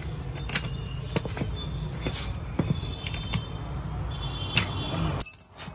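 Socket and spanner clinking and knocking against a steel steering rack as they are fitted onto its 36 mm pinion nut: several sharp metal clicks, some ringing briefly, the brightest one about five seconds in.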